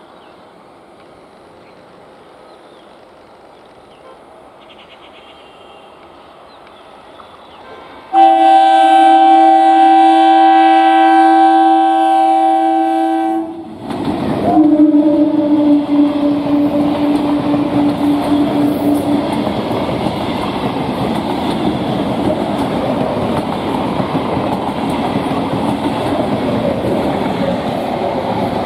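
12-coach electric multiple unit (EMU) local train approaching and passing: a faint rumble, then about eight seconds in a loud air-horn blast held for about five seconds. A lower horn note follows for about five seconds as the train passes close, and the rumble and clatter of wheels on the rails go on to the end.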